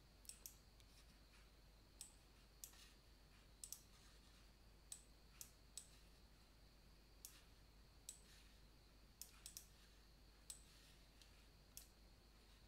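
Faint computer mouse clicks, scattered and irregular, several in quick pairs like double-clicks.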